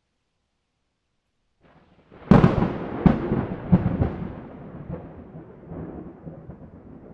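A thunderclap: silence, then a sharp crack about two seconds in, two more cracks within the next second and a half, and a long rolling rumble that slowly fades.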